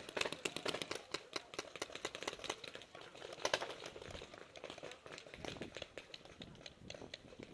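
Paintball markers firing: a rapid, uneven crackle of pops, densest in the first second, with a louder single pop about three and a half seconds in.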